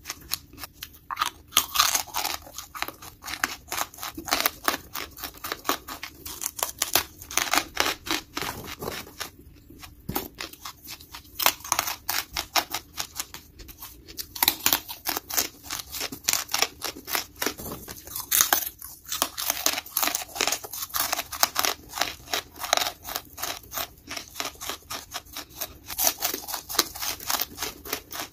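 Lump charcoal being bitten and chewed close to the microphone: dense, irregular crunching and snapping, with a few brief pauses.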